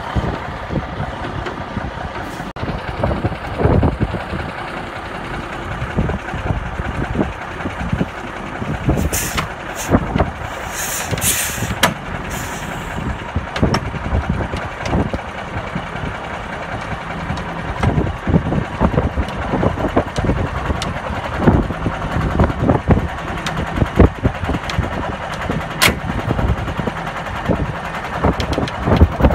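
Heavy diesel truck engines running under a continuous mechanical rumble, with scattered knocks and clanks throughout. Bursts of high hissing come about nine to thirteen seconds in.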